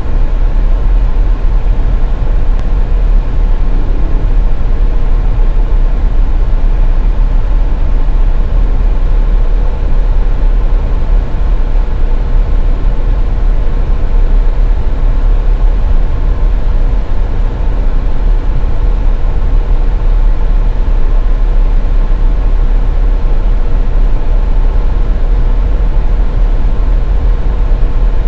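Steady road noise heard from inside a moving car on the highway: a loud, unbroken low rumble of tyres and engine with a faint steady hum over it.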